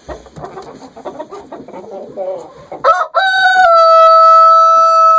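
Chickens clucking, then about three seconds in a rooster crows close by: a loud, long crow that ends on a steady held note.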